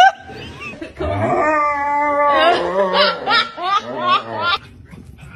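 A short loud rising squeal right at the start, then a German Shepherd howling in a tantrum over a bath. It gives one long wavering howl, then a run of short rising-and-falling yowls that stop about four and a half seconds in.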